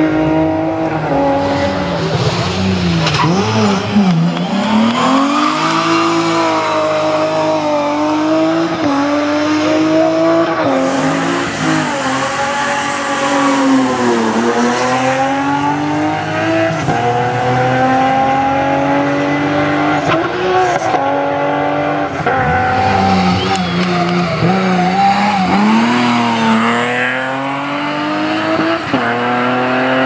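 Rally cars' engines revving hard on a hillclimb run. The pitch climbs through each gear and drops away sharply at shifts and lift-offs, several times over.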